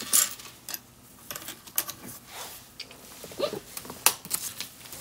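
Small plastic LEGO pieces clicking and clattering against each other and the tabletop as hands pick through a pile of loose bricks, in scattered short ticks, the loudest about four seconds in.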